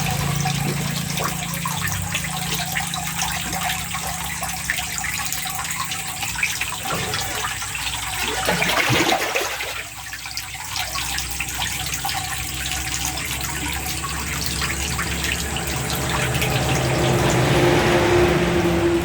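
Water running and splashing steadily, with a louder surge about nine seconds in, a brief lull just after it, and a build toward the end.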